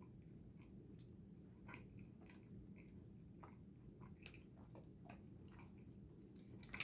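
Faint chewing of a sticky chili-coated gummy candy: soft irregular mouth clicks and smacks over a low steady room hum.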